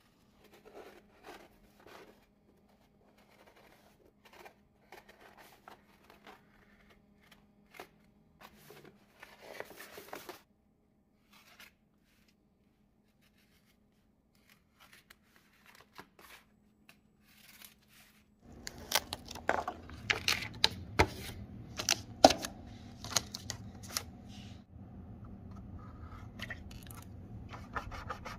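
Vinyl wrap film being cut with a craft knife and handled: scattered scratching, rustling and crinkling, with short clicks. In the last third a steady hiss comes in under denser, louder snaps and crackles of the film being pressed and trimmed.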